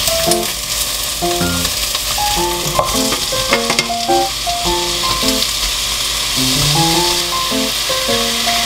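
Vegetables sizzling as they stir-fry in hot oil in a wok, stirred with a wooden spoon. A few sharp clicks of the spoon against the pan come about three to four seconds in.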